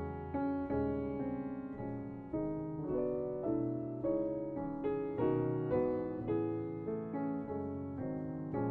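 Background piano music: a gentle melody of single notes and chords, a new note struck about every half second and left to fade.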